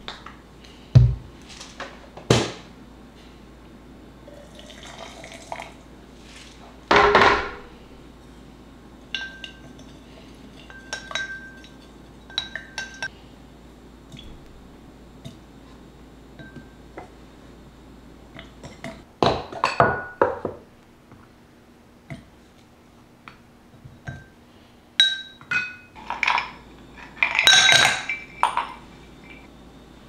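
A series of light knocks and glass clinks as fruit and lemon slices are dropped into a glass tumbler and kitchen containers are handled. Several clinks leave short ringing tones, and the busiest handling comes in bursts toward the end.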